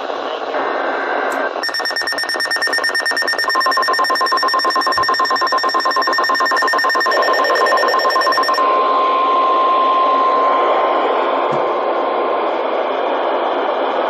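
A NOAA weather radio receives a severe thunderstorm warning. First comes a brief burst of the SAME digital header's warbling data tones. Then the radio sounds a rapid, shrill alarm beeping, and about three seconds in the steady 1050 Hz weather-service warning tone joins it. The beeping stops past the halfway mark, and the tone stops near the end, leaving radio hiss.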